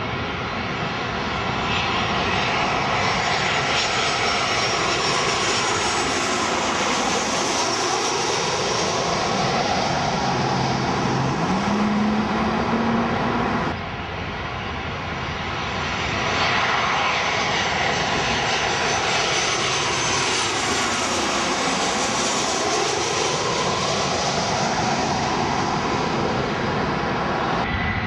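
Twin-engine jet airliners passing low overhead on final approach to land, their jet engines running with a steady noise that sweeps in tone as each plane goes over. There are two passes, with a sudden cut to the second about halfway through.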